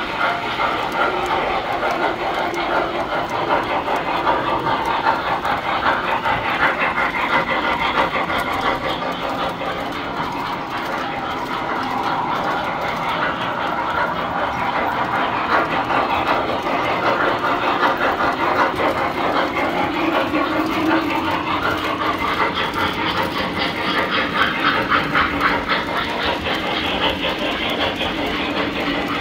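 Tinplate toy trains running on three-rail metal track: a steady metallic rumble and rattle, dense with rapid clicking of wheels over the rail joints.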